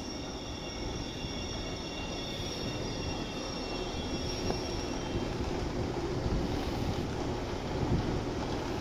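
Passenger train rolling slowly into a station platform and slowing to a stop: a low rumble of wheels on rails, with a high, steady squeal that dies away about halfway through.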